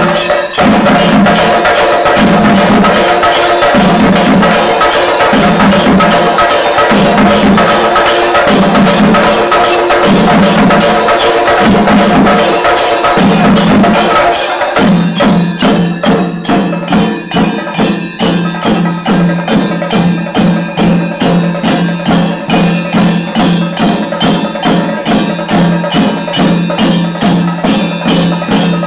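Shinkari melam ensemble: chenda drums beaten with sticks together with ringing ilathalam hand cymbals, loud and continuous. The deep drum tone swells on and off about once a second at first, then about halfway through the beat changes to a steady, driving stream of evenly spaced strokes.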